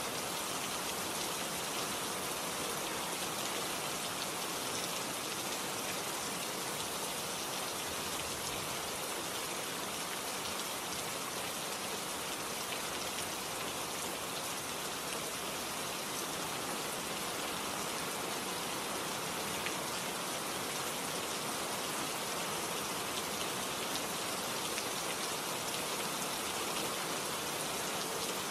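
Steady, even hiss like falling rain, unchanged throughout, laid as a sound bed under the video rather than coming from the gloves.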